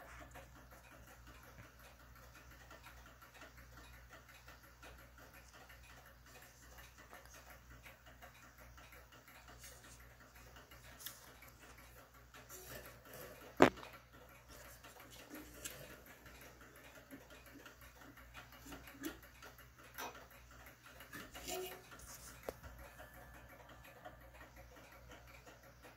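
Faint, scattered clicks and knocks from an antique Ansonia clock movement being handled, with one sharp click about halfway through. There is no steady ticking.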